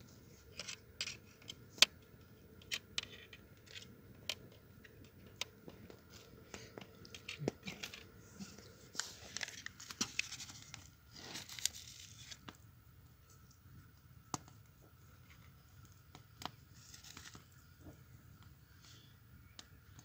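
Small folded paper packet of saffron rustling and crinkling in bursts while saffron is shaken onto chicken skewers, with scattered sharp clicks and taps.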